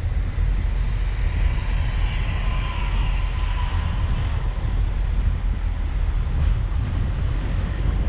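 A car driving over cracked asphalt: a steady low rumble of road and wind noise, with a faint whine that swells and fades a couple of seconds in.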